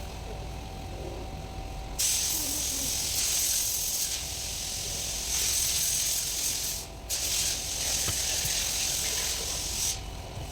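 A pressurised spray hissing in two long bursts: one of about five seconds starting about two seconds in, then after a brief break a second of about three seconds.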